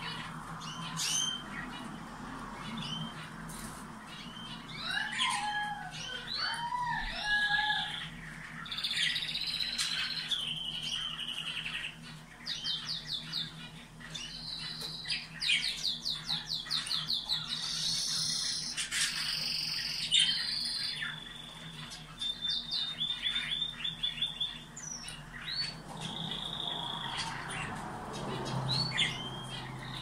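Domestic canaries singing: long runs of rapid trills and rolls with clear whistled notes, one phrase straight after another.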